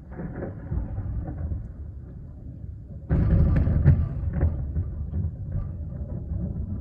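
Thunder rumbling, with a sudden louder crack about three seconds in that rolls off into a lower rumble.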